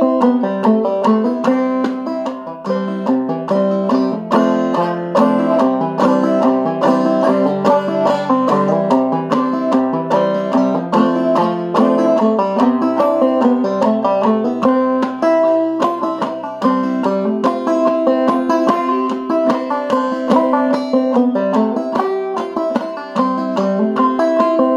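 Five-string banjo played clawhammer style in double C tuning with the fifth string lowered to E (eCGCD): a steady, unbroken rhythm of plucked notes and downstroke brushes.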